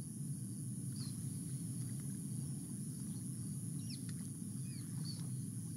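Outdoor wildlife ambience: a few short bird chirps over a steady high insect drone and a low rumble.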